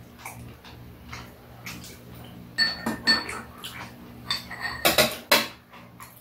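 Metal spoon clinking against a small bowl and the metal tray while food is scooped: a handful of sharp clinks, some ringing briefly, starting about two and a half seconds in and loudest near the end.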